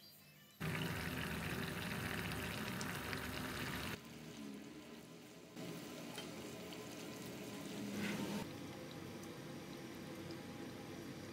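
Rawon, an Indonesian black beef soup, simmering and bubbling in a wok as a spatula stirs it, then being ladled out. The sound comes in short pieces whose level changes abruptly.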